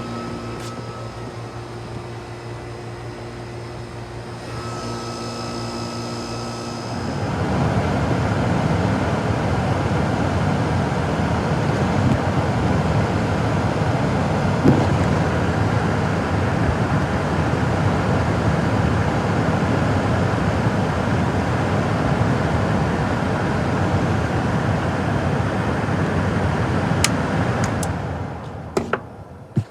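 Air-conditioning equipment running: a steady motor hum with a few fixed tones. About seven seconds in, a louder, even rushing noise takes over and fades out near the end.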